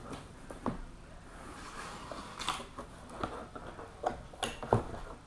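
Cardboard shipping box being opened by hand: scattered knocks and rubs of the cardboard lid and flaps, a rustling slide about two seconds in, and foam packing being lifted out, with the sharpest knock near the end.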